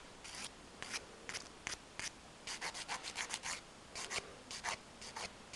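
Hand nail file, 180-grit side, rasping over a gel nail in a faint, quick run of short strokes as the lifted gel is filed down to the natural nail.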